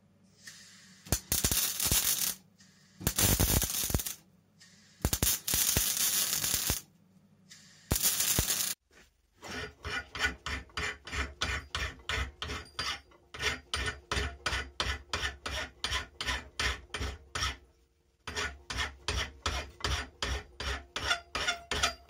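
A MIG welder laying four short welds on steel, each a second or two of crackling hiss. Then a bent steel rod clamped in a bench vise is filed by hand, even strokes about two and a half a second, with one short pause near the end.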